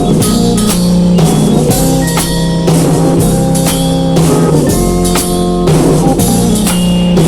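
Instrumental intro of a 1965 beat-group record: band music with a steady drum-kit beat under guitar chords, before the vocal comes in.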